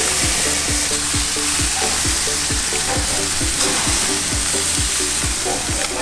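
Grouper fillets sizzling on a hot gas grill, a steady hiss, over background music with a steady beat.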